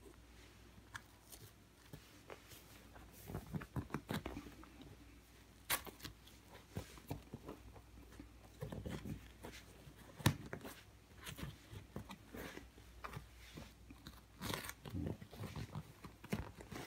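Hands pressing and smoothing an adhesive leather-look repair patch onto a sofa armrest: soft crinkling and rubbing of the sheet against the upholstery, with a few sharp little clicks.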